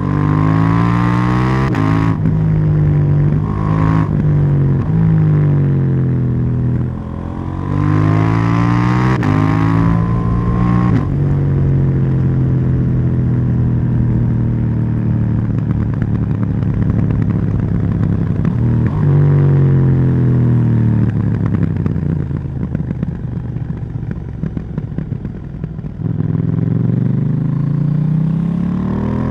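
KTM 790 Duke's parallel-twin engine under a rider: it revs up through the gears with quick shifts, holds a steady cruise, winds down on a closed throttle for several seconds, and pulls hard again near the end.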